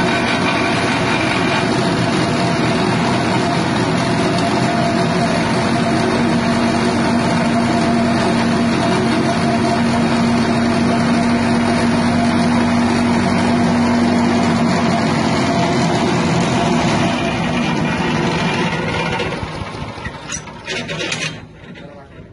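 Grass chopper machine driven by a 6.5 hp petrol engine, running steadily, then winding down and stopping near the end.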